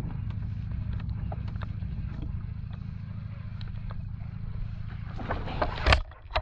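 A boat motor running steadily with a low hum, with light clicks over it. A loud knock or splash comes near the end.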